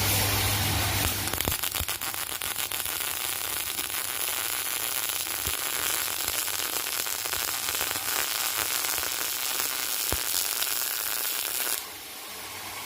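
MIG welding arc crackling and sizzling as a bead is run on a joint with the gap opened up for full penetration. The arc strikes about a second in and runs for roughly ten seconds, stopping shortly before the end.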